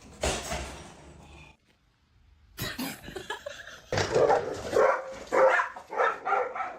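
A dog barking repeatedly, a quick run of short barks and yips in the second half, after a brief burst of rustling noise near the start.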